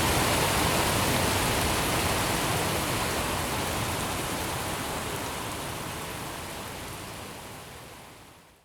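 Steady rain, an even hiss, fading out gradually over the last few seconds to almost nothing.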